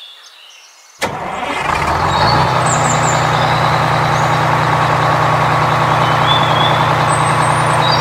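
A truck engine starts about a second in, builds for a moment and then runs steadily; a few short bird chirps sound over it.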